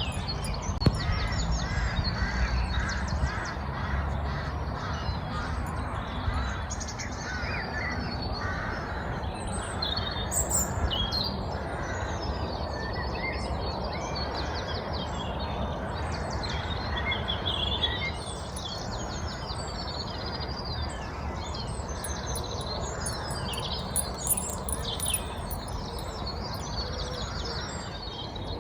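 Several wild birds singing and calling in a spring morning chorus, with overlapping chirps and trills, over a low steady rumble.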